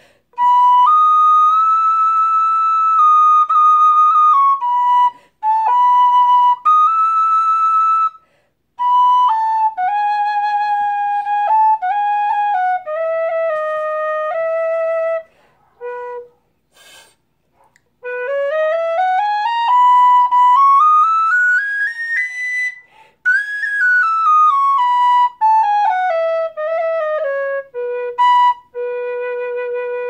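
Anak high B Irish tin whistle playing clear single notes in short phrases, with gaps between them. About two-thirds through it runs up the scale over two octaves, comes back down, and ends on a held low note.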